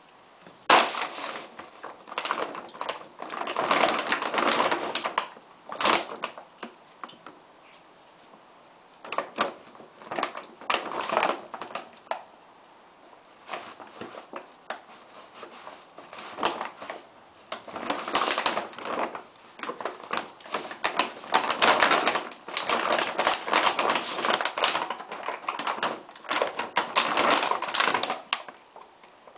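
A German Shorthaired Pointer puppy playing with a feed bag: irregular bouts of crinkling and rustling with sharp crackles, broken by short pauses.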